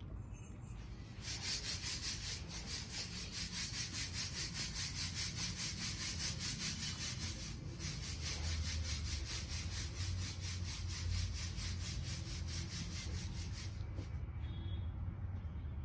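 Rapid, even rasping strokes, about four or five a second, like a saw or file working, starting about a second in and stopping near the end.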